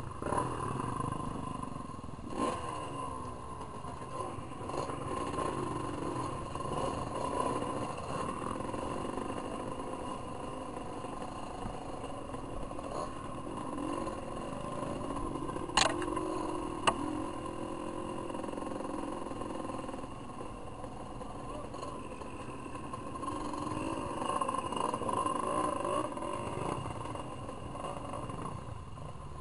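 Dirt bike engine running and revving up and down on a rough forest trail. Two sharp knocks land about a second apart midway through.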